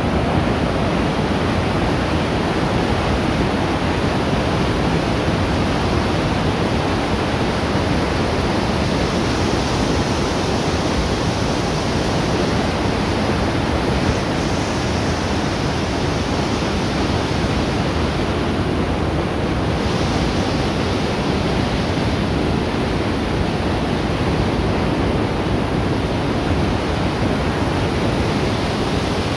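The Rhine Falls' torrent of water plunging over the rocks, heard close up as a loud, steady rushing roar.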